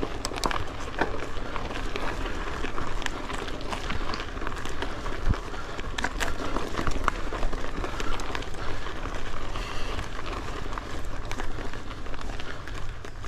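2022 Polygon Syncline C2 carbon hardtail mountain bike rolling over a rough gravel and dirt trail: steady tyre noise with a low rumble and scattered clicks and rattles from the stones and the bike.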